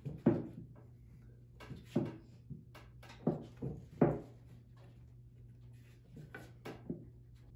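Several short knocks and thumps of a melamine-and-wood mold being pressed and shifted by hand on a plywood workbench, the loudest about three and four seconds in, over a steady low hum.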